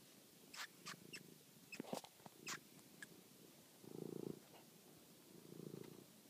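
Domestic cat purring: a low rumble that swells with each breath, about every second and a half, in the second half. Several sharp clicks or scuffs come in the first three seconds.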